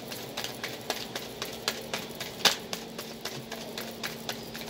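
A deck of tarot cards being shuffled by hand: a quick, irregular run of light card clicks and flaps, with one sharper snap about two and a half seconds in.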